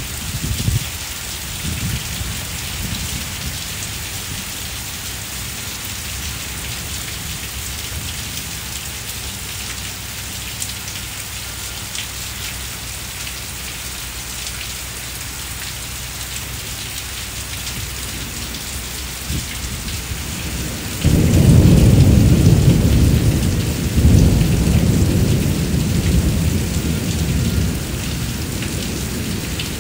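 Heavy rain falling steadily on a brick walkway and garden, a constant hiss. About two-thirds of the way in, a loud low rumble of thunder breaks in suddenly, swells again a few seconds later and slowly fades.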